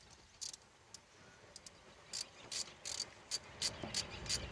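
Socket ratchet clicking in short bursts, about two or three a second from about two seconds in, as it tightens the 5/16 screw of a radiator hose clamp.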